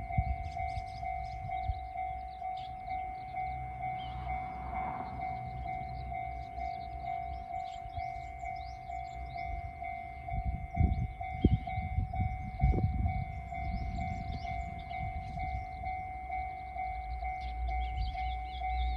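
Japanese level-crossing warning bell ringing in a steady, evenly repeating ding. Under it a KiHa 110 series diesel railcar rumbles past, with a few heavy thumps around the middle.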